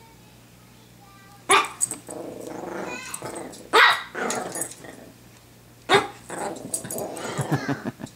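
Pomeranian barking sharply three times, about two seconds apart, with growling between the barks, as in play.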